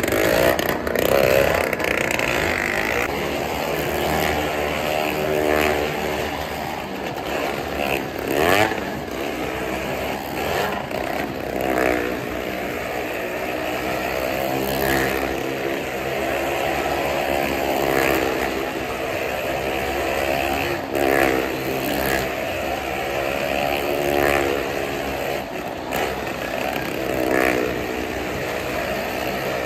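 A motorcycle and a small hatchback car running hard as they circle the vertical wooden wall of a well-of-death pit. The engine note swells and bends in pitch about every three seconds as each lap goes round.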